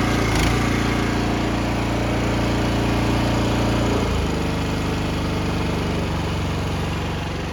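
Petrol pressure washer engine running steadily just after being pull-started, its note dropping slightly about four seconds in as it settles.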